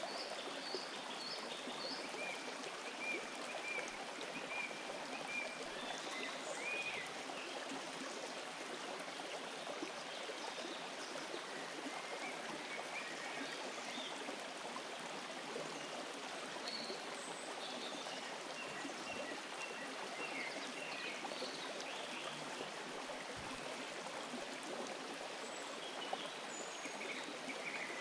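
A small, shallow forest stream running steadily over stones and leaf litter. Short high chirps and trills of songbirds come in now and then, most of them in the first few seconds.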